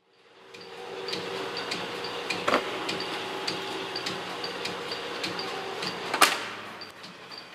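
Belt-and-pulley line shaft system running with a steady mechanical clatter and a regular ticking, with two loud knocks about two and a half and six seconds in. It is being shut down and gets quieter near the end.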